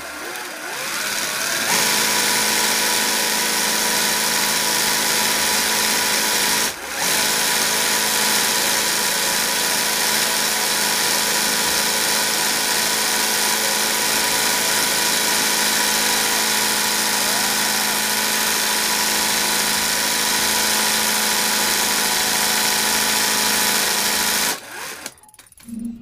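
Industrial sewing machine running steadily as it stitches embroidery, with a brief break about seven seconds in. The machine stops about a second and a half before the end.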